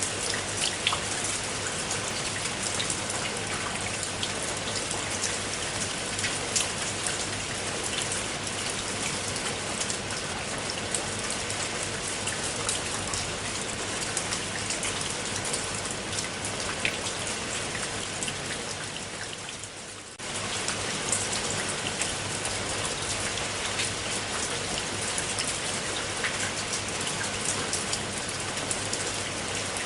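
Steady rain falling, with many separate drops striking a surface. About twenty seconds in, the sound briefly fades and then comes back suddenly.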